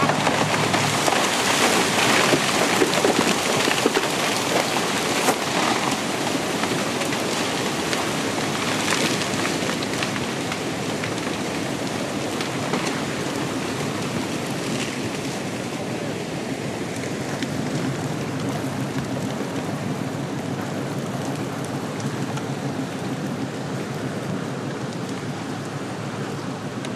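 Continuous rushing, crackling noise of a landslide of earth and trees sweeping down the forested bank, loudest in the first few seconds and slowly dying down.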